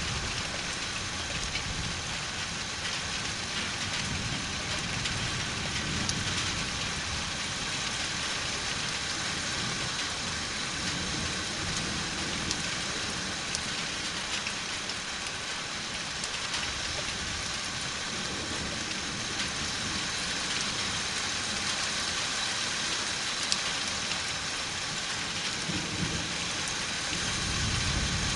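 Steady rain falling, with a few single drop taps, under a low rumble of distant thunder that swells near the end.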